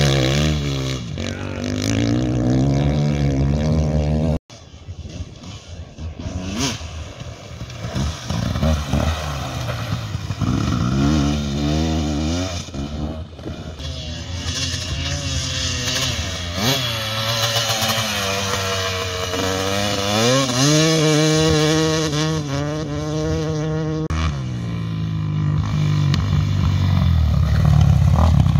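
Off-road motorcycles racing past on a dirt track one after another, their engines revving up and falling back as they go through the gears.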